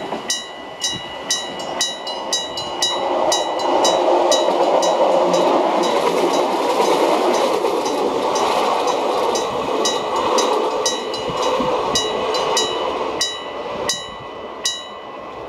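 Old-style electric-bell level-crossing signal on a Hiroden line ringing with rapid, evenly spaced metallic strokes, while a Hiroden train runs over the crossing. The train's running noise swells through the middle and fades near the end as the bell keeps ringing.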